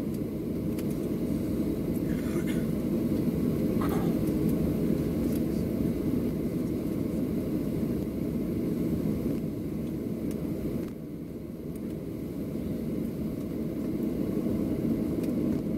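Cabin noise of a Boeing 737-700 taxiing with its engines at idle: a steady low rumble that drops a little about eleven seconds in, then builds again.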